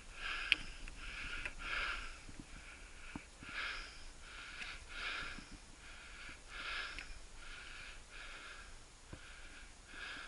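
Rhythmic breathing close to the microphone, a breath roughly every two-thirds of a second, with a single sharp click about half a second in.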